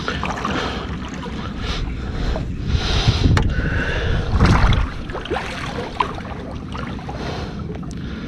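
Wind and water noise around a small drifting fishing boat, a steady low rumble that swells louder twice around the middle, with a few light clicks and knocks.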